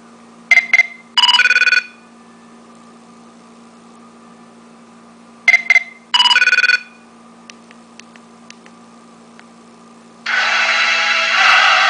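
Electronic phone ringtone: two short beeps then a longer held tone, played twice about five seconds apart. Near the end a loud rush of noise starts and keeps going.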